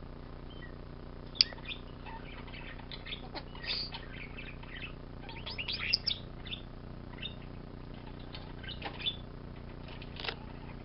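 Pet starling chattering: a scattered run of short chirps, clicks and whistles, with a sharp click about a second and a half in and a busy flurry around the middle.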